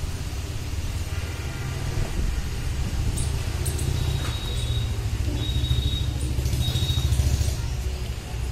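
A low, uneven rumble, a little louder in the second half, with a few brief, faint high-pitched peeps.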